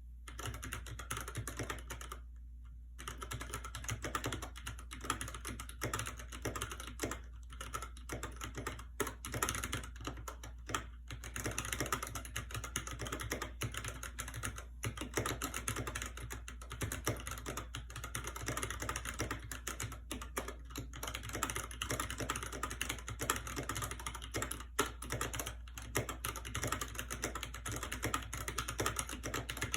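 Keychron K6 mechanical keyboard being typed on quickly: a dense, continuous stream of keystrokes, with a short pause about two seconds in.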